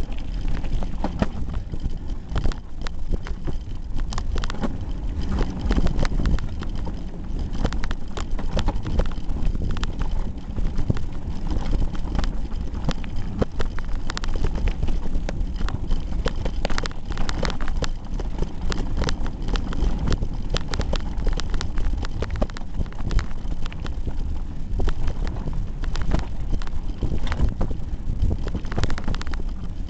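Hardtail mountain bike ridden fast over a rough gravel and dirt trail, heard through a camera taped to the handlebars: constant rattling and irregular knocks from the bars and frame as the wheels hit stones and bumps, over a heavy low rumble.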